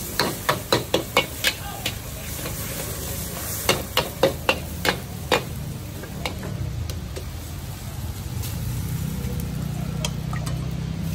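Metal spatula clanging and scraping against a wok as noodles are stir-fried over a high gas flame, with steady sizzling underneath. The strikes come in two quick runs, one at the start and one about four to five seconds in, then only now and then.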